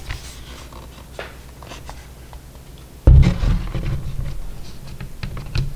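Light plastic clicks and taps as an HP laptop's case is handled, then a sudden dull thump about three seconds in, followed by low rumbling handling noise.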